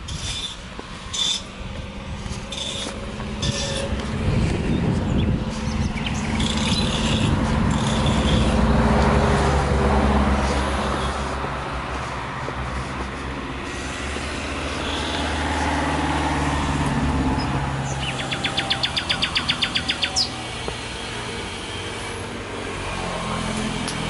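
Footsteps on a dirt path, then a car passing on the street, its sound swelling and fading away over several seconds; a second, quieter vehicle swells by later. Near the end a rapid high trill of about ten pulses a second lasts about two seconds.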